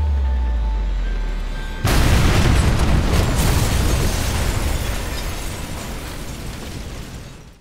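A deep low drone, then about two seconds in a loud explosion goes off, its rumble and hiss of debris slowly fading over several seconds before cutting off suddenly.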